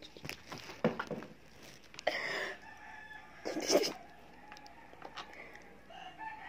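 A rooster crowing in the background, heard as faint drawn-out calls. Light clicks and knocks of small plastic makeup items being handled.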